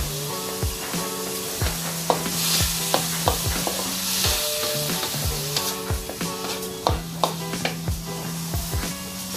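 Pieces of meat sizzling as they fry in oil in a large black wok while a wooden spatula stirs them, scraping and knocking on the metal a few times.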